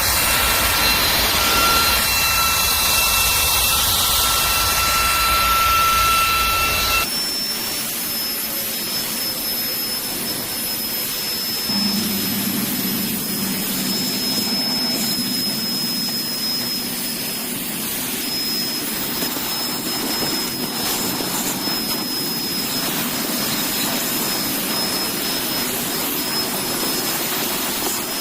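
Cordless handheld vacuum cleaner motor running with a steady high whine. About seven seconds in, the sound changes suddenly: the low rumble drops away and a thinner, higher whistle carries on.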